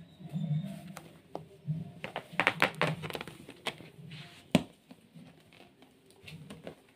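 Sheer curtain fabric rustling and being scratched, with a quick run of clicks and scrapes about two seconds in and a single sharp tap a little later.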